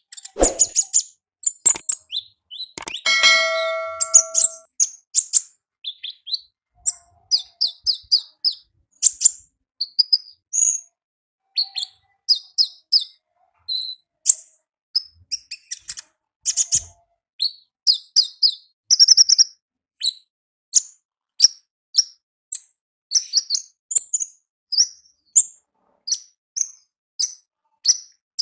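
Konin ninja sunbird calling in its wild 'ngalas' style: a long, even run of short, high, sharp chirps and twitters, about one to two a second. About three seconds in, a ringing tone with several pitches sounds for about a second and a half.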